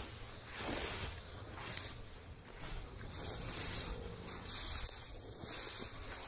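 Rustling swishes of walking through dense brush, roughly one a second: branches and dry leaves brushing against clothing and crunching underfoot.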